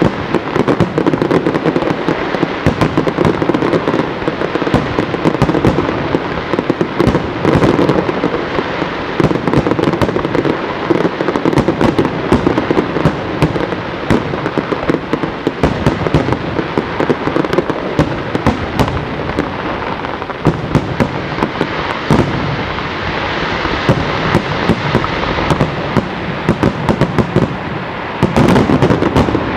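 Aerial firework display: a dense, continuous barrage of shell bursts, bangs and crackling, with no break.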